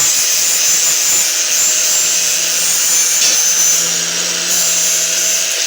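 Angle grinder's cut-off wheel running steadily as it cuts into a refrigerator compressor, a loud high grinding hiss.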